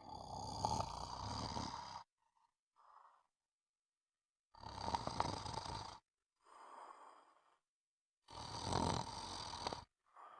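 Snoring: three loud snores about four seconds apart, each followed by a fainter, shorter sound.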